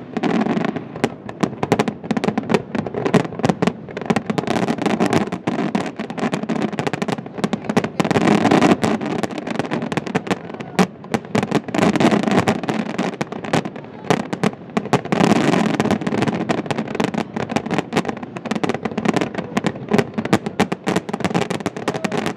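Aerial fireworks display: a rapid, unbroken barrage of shell bursts, bangs and crackling, swelling into denser volleys several times.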